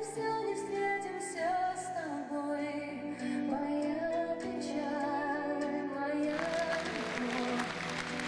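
A woman singing live into a microphone with instrumental accompaniment. About six seconds in, audience applause comes in over the music.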